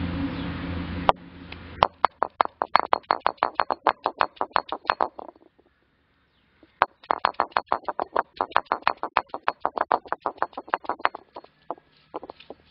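Stone roller of a traditional grinding stone knocking rapidly on the flat stone slab, about seven strokes a second, as ginger is crushed into paste. The strokes pause for about a second and a half in the middle, broken by one sharp click, then resume and thin out near the end. A second of steady noise comes before the strokes begin.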